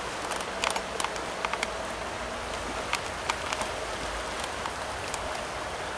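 Fast, shallow trout-stream riffle running over stones: a steady rush of water with scattered small splashes and plinks.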